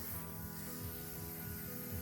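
Background music of sustained notes that change in steps.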